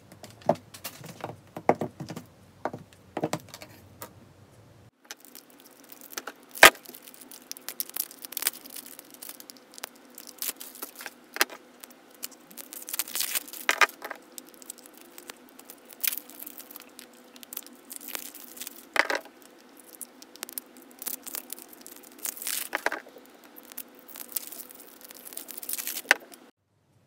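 Hard plastic lollipop-shaped slime containers clicking and tapping against each other and the tabletop as they are picked up and set down, with crinkling of a clear plastic packaging bag. The sounds are many sharp, separate clicks with soft rustling between them.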